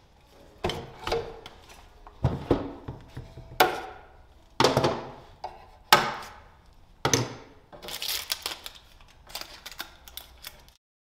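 Small clamps and a wood corner piece knocking and clicking against a solid maple drawer as they are fitted by hand. Sharp knocks come roughly once a second, with quicker clicking near the end.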